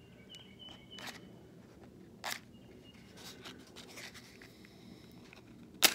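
A nail-polish-coated wooden match scraped against a matchbox striker: a couple of light scratches, then one sharp, loud strike near the end that lights it.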